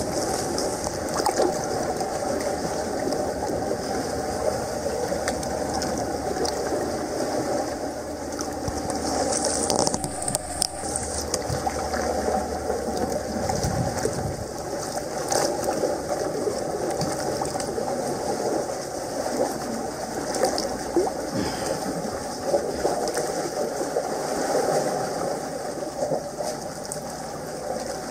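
Sea water sloshing and washing against a rocky shore, a steady noisy wash with scattered knocks and taps.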